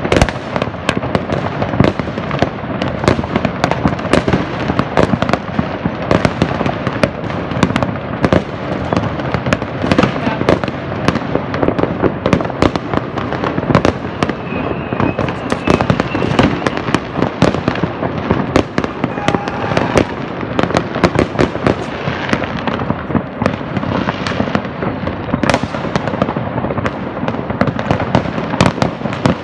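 Many fireworks going off across a city at once: a dense, unbroken barrage of overlapping bangs and reports, several every second.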